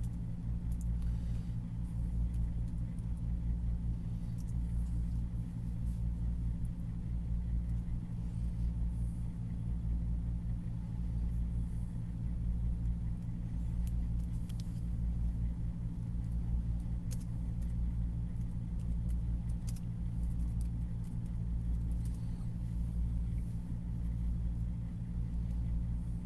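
A steady low mechanical hum with a slow, even pulse, and a few faint clicks over it.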